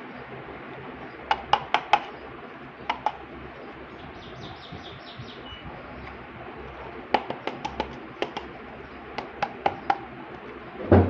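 Small hard clicks and taps of miniature toy kitchen pieces being handled and set down, in quick groups of three to six, with a faint run of high chirps in the middle and a louder knock at the very end.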